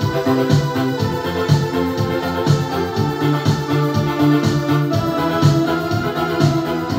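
Yamaha PSR-S750 arranger keyboard being played: a melody over held bass notes, with a regular beat about once a second.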